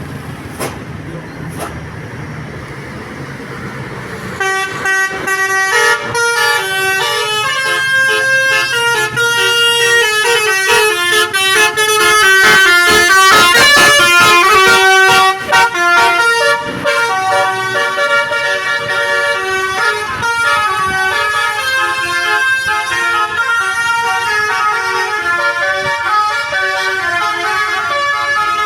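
Vehicle engine running, then about four seconds in a bus's Basuri telolet musical horn starts playing a long melody of changing notes that carries on to the end, loudest around the middle.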